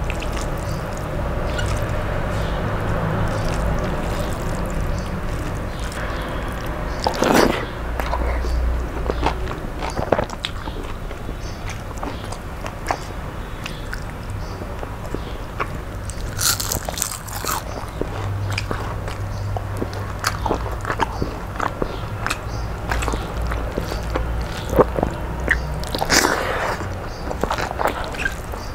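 A person eating rice and curry by hand, close to the microphone: steady chewing with many small mouth clicks, and a few louder crunches, one about a quarter of the way in, one past the middle and one near the end.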